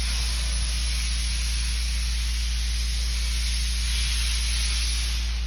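A steady hiss over a low hum, with a faint high whine that stops about five seconds in as the hiss eases off.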